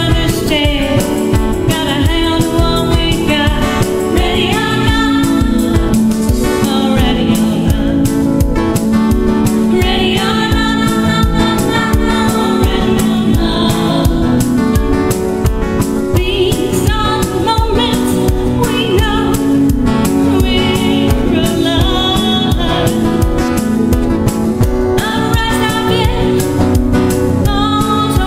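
A song with sung vocals, in a gospel or choir style, over steady instrumental backing with a regular beat.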